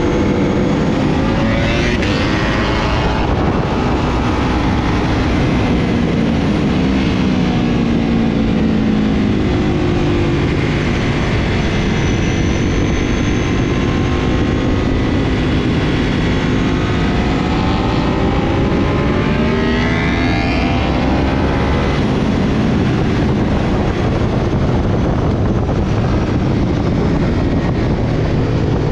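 Ducati V-twin sportbike engine at speed under heavy wind rush on the microphone, its pitch rising and falling with the throttle: it climbs hard about two seconds in and again around twenty seconds, and drops away under braking in between.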